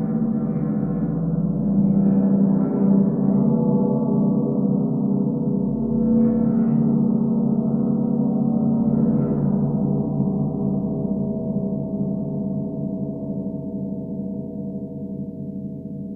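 Gong sounded with a black rubber-ball mallet: a sustained wash of many overlapping low tones, renewed by several soft strokes in the first ten seconds, then slowly dying away.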